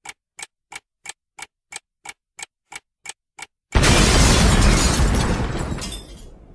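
Intro sound effect: a clock ticking about three times a second, eleven ticks, then a sudden loud boom a little past halfway that dies away over about three seconds.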